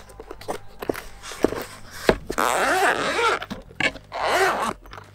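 Zipper on a black hard-shell drone carrying case being pulled open, in two long rasping pulls about two seconds in and near the end. A few knocks from handling the case come before them.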